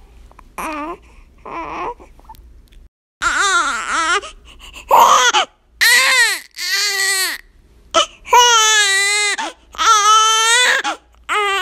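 A baby crying in a string of separate wails with short pauses between them. Some wails are short and bend up and down in pitch, others are held for about a second. The first couple are quieter, and the loudest come in the second half.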